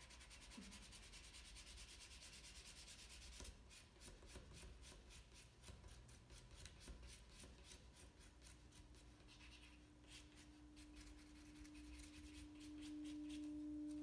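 Felt-tip marker scribbling on cardboard in quick, faint back-and-forth strokes, colouring in a section. A steady low hum comes in about eight seconds in and grows louder near the end.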